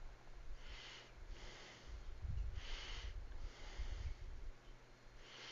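Soft breaths, about one a second, close to the microphone, over a faint steady low hum.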